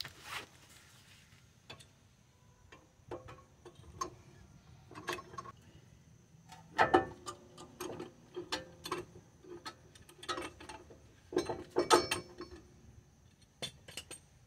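Sharp metallic clicks and clinks from a screw-type clamp being worked against a front brake caliper to push its piston back, coming in clusters with the loudest about seven and twelve seconds in.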